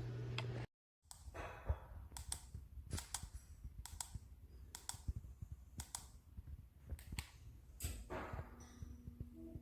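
A steady low hum that cuts off abruptly, followed by a run of sharp clicks and light knocks, about one or two a second.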